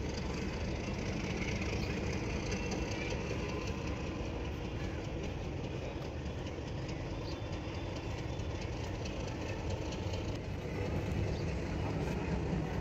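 A steady low mechanical drone, like an engine running, holding even throughout.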